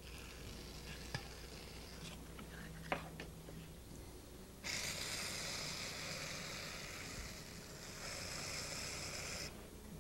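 Potter's wheel running with a faint low hum while wet hands work a spinning clay pot. There are two light knocks in the first three seconds, then a steady hissing rub of hands on wet clay from about halfway until just before the end.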